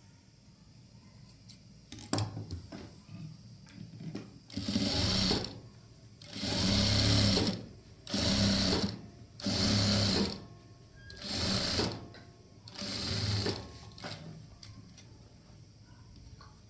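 Sewing machine stitching in six short runs of under a second to about a second and a half, each starting and stopping abruptly, with a few small clicks before the first run.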